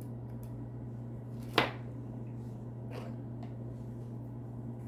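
A sharp single click about one and a half seconds in and a fainter one near three seconds, from a metal pen and small objects being handled on a table, over a steady low hum.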